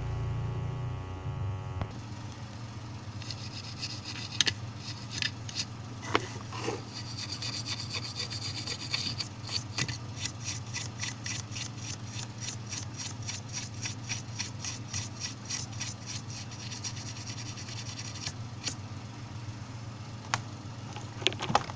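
Rapid, even scrubbing strokes, several a second, over a steady low hum: the phone's circuit board being washed where the charging connector's pins were, just after the connector was desoldered.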